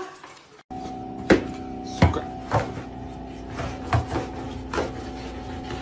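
A steady hum of several held tones with a series of sharp knocks and thuds, about six over four seconds.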